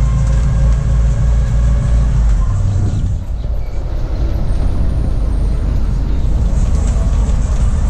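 Open-air trolley bus driving along: engine rumble and road noise heard from an open-sided seat. The low rumble eases about three seconds in, then runs on steadily.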